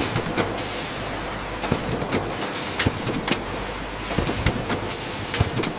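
Carton taping machine on a packaging line running: a steady mechanical noise with irregular clicks and clacks.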